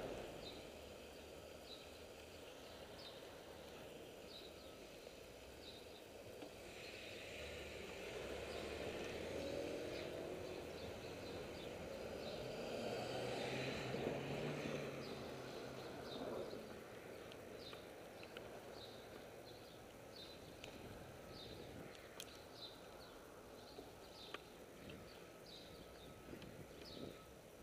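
Quiet street traffic ambience heard while moving along city streets, with a vehicle passing about halfway through and a light ticking repeating about once a second.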